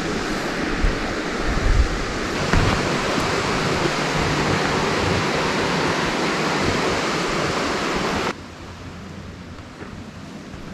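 Steady rush of running river water, with a few low knocks in the first couple of seconds; the rush drops suddenly to a much quieter level about eight seconds in.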